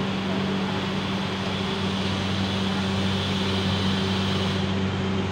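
Palembang LRT train standing at the platform with its doors shut, giving a steady low electrical hum over the even hiss of its ventilation and air conditioning.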